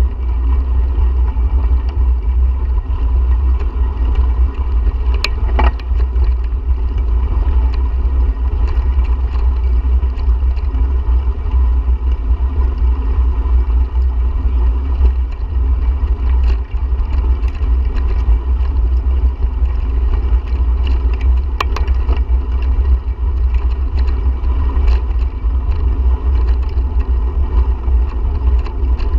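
Steady heavy wind rumble on the microphone of a bicycle moving along a trail, with tyre and ride noise under it. A few sharp clicks or knocks cut through.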